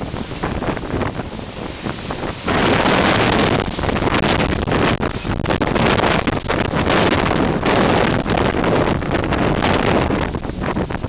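Strong wind gust from a bow-echo derecho storm front blasting the microphone. It jumps sharply louder about two and a half seconds in and stays loud, a gust estimated at 50–60 mph.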